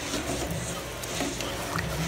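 A ladle stirring a pot of hot seasoned water, with a few faint knocks and scrapes against the pot.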